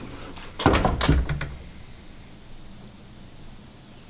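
A quick cluster of knocks and rattles about a second in, as the pig's makeshift box enclosure is handled and opened, then only faint background.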